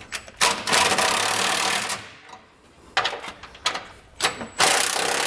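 Cordless electric ratchet running in bursts, spinning down frame-bracket bolts: two long runs of about a second and a half, with a few short blips between them.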